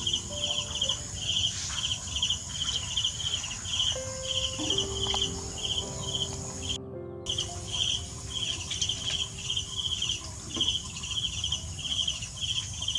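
A cricket chirping in a steady rhythm, two or three short trilled chirps a second, with the sound cutting out for a moment about halfway through.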